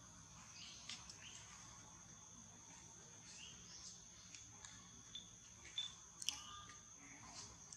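Faint, steady, high-pitched drone of insects, with a few short chirps and clicks scattered through it; the sharpest clicks come about six seconds in.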